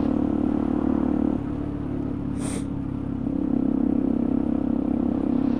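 Motorcycle engine running steadily beneath the rider, easing off about a second and a half in and picking up again a couple of seconds later. A short sniff from the cold-nosed rider cuts in near the middle.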